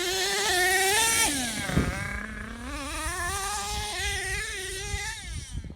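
HPI Savage 3-speed RC monster truck's nitro engine running at high revs. The pitch drops briefly about two seconds in as the throttle comes off, then climbs back and holds high, as the truck runs at a jump.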